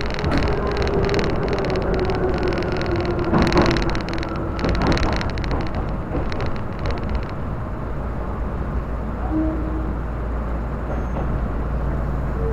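Tobu Railway electric train running, heard from inside the carriage: a steady rumble of wheels on rails with a couple of knocks a few seconds in, and a thin whine that slowly falls in pitch during the first few seconds.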